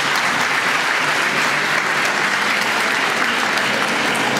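A large congregation applauding steadily, many hands clapping at once.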